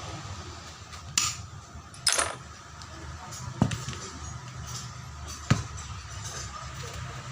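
Four sharp metallic knocks and clinks, a second or two apart, of tools and metal parts being handled on a workbench, over a steady low hum.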